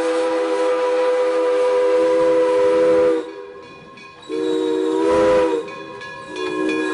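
Steam locomotive's chime whistle blowing as it passes: one long blast, a shorter blast about four seconds in, and another long blast starting near the end, with steam hissing underneath.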